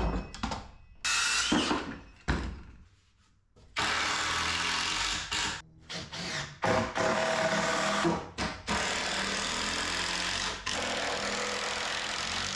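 Handheld cordless power tool used on pressure-treated lumber framing, running in repeated bursts: short ones at first, then longer runs, the longest lasting several seconds in the second half.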